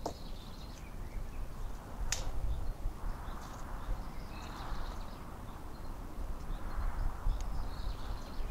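Wooden sticks knocking and clattering as they are stood upright against a shelter frame, with rustling and footsteps in dry leaf litter; a sharp wooden knock about two seconds in.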